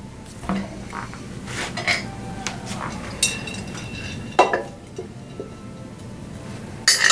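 Metal knocks and clinks as a vibratory feeder bowl and its drive base are handled and fitted back together, with small metal parts clinking in the bowl. One sharp knock comes about four and a half seconds in and another near the end.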